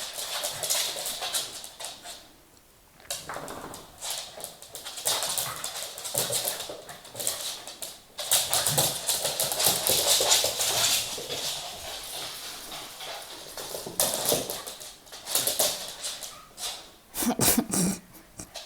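Two Welsh corgis playing without barking: repeated short huffs, snorts and sneezes.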